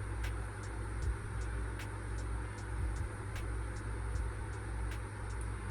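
Steady low background hum with a soft haze of noise, and faint short ticks about once or twice a second.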